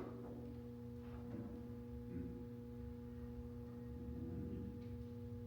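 Quiet background music: a few soft low guitar-like notes over a steady held tone.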